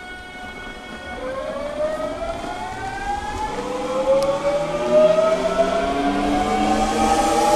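Hankyu 8000 series electric train pulling away: its VVVF inverter and traction motors give a steady tone that, about a second in, turns into several whining tones rising together in pitch and growing louder as the train accelerates.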